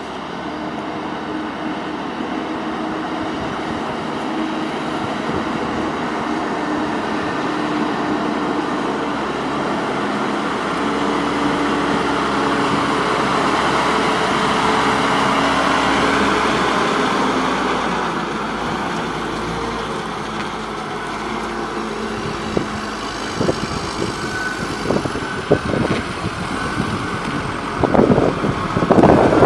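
John Deere 310J backhoe loader's diesel engine running, its level swelling slowly and then easing off. Sharp knocks and clanks start about two-thirds of the way through and grow louder toward the end.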